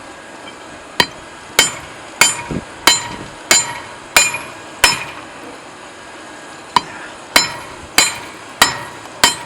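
Hand hammer striking hot railroad-clip steel to straighten it: twelve ringing metal blows at about one and a half a second, with a pause of about two seconds after the seventh.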